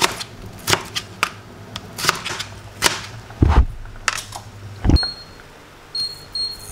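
Knife chopping raw potatoes into fries on a plastic cutting board: a string of sharp knocks, then two heavier low thumps. Near the end an induction hob's touch controls beep three times.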